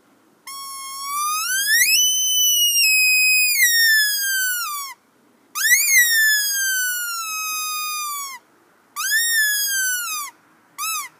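Handheld squirrel call blown as a death call, imitating the scream of a squirrel seized by a hawk. Four drawn-out whistling screams, each sliding down in pitch: the first, about four seconds long, rises before it falls, the next ones are shorter, and the last near the end is a quick chirp.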